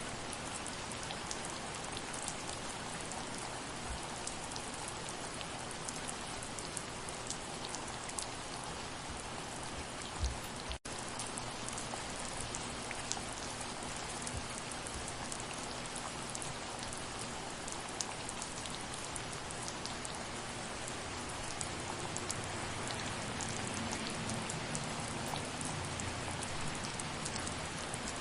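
Steady soft rain, a constant hiss with many individual drops ticking. A single louder low knock about ten seconds in is followed by a momentary break in the sound.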